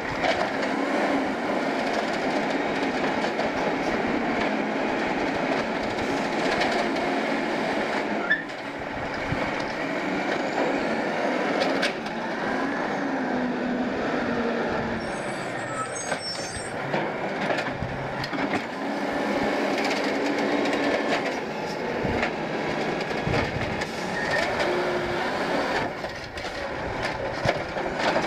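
Autocar Xpeditor automated side-loader garbage truck working a curbside route: its diesel engine revving to drive the hydraulic arm as it lifts and empties a cart, with hydraulic squeal and a few sharp knocks of the cart and arm, then the truck pulling up and reaching its arm out to the next cart.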